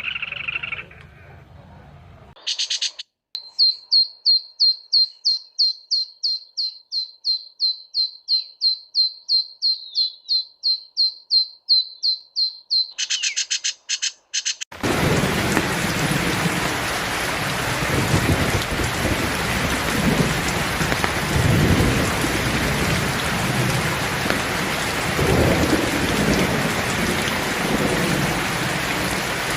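A songbird repeats a fast series of short, high, down-slurred notes, about four a second, for some ten seconds. About halfway through, this gives way to a steady downpour of heavy rain with low rumbles of thunder.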